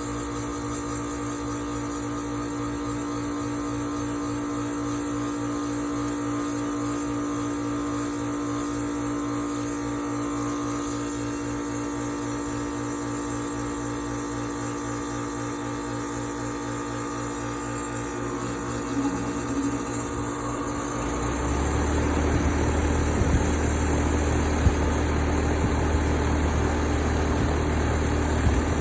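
Air-conditioner condenser unit running with a steady hum, then about two-thirds of the way through the compressor kicks on and a deeper, louder hum with vibration sets in. The unit is short cycling.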